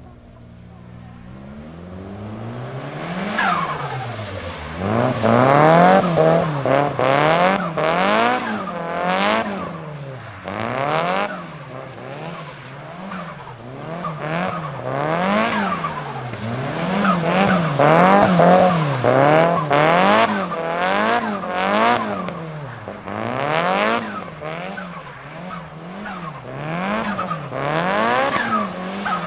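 Turbocharged engine of a tuned Nissan Silvia S15 revving hard, its pitch climbing and dropping about once a second, with sharp cracks between the revs.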